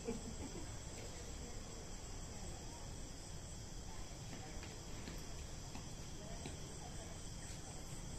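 A steady chorus of night insects, crickets chirping, heard as several thin high tones held without a break.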